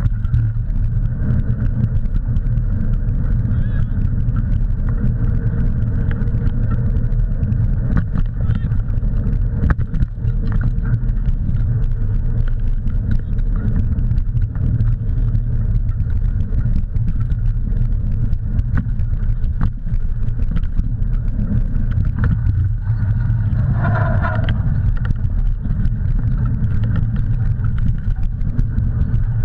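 Steady low rumble of wind buffeting the microphone and bike tyres rolling over a dirt track, with a dog pulling the bike along. About three-quarters of the way through comes a brief pitched call.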